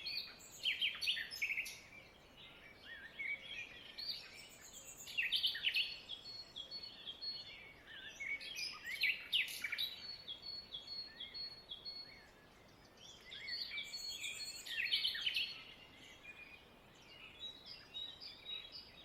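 Several birds chirping and singing together, a busy mix of short calls and trills over a faint steady hiss, easing off for a moment about twelve seconds in.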